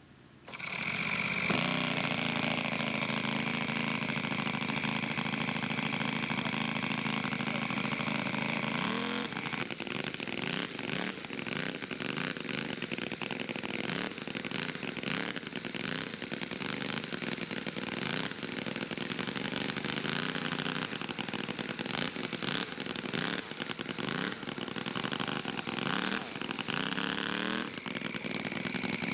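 Laser 300V twin-cylinder model aircraft engine comes in about half a second in and runs at a steady speed. From about nine seconds in its pitch rises and falls again and again as the throttle is worked up and down.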